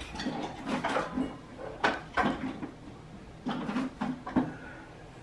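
Plastic food-storage containers and lids clattering in an open kitchen drawer as someone rummages through them, in scattered knocks and clicks about once a second.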